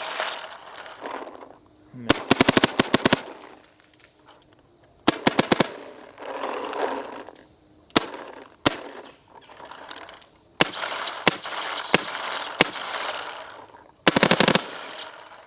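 Empire Axe 2.0 electronic paintball marker firing. It shoots several quick strings of about eight to ten shots each and a scatter of single shots in between.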